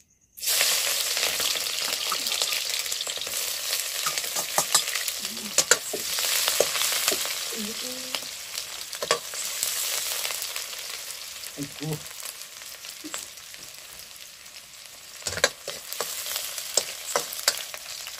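Sliced onions frying in hot oil in a kadhai (wok) over a wood fire. The sizzle starts suddenly about half a second in as they hit the oil and slowly dies down. A metal ladle scrapes and clanks against the pan as they are stirred.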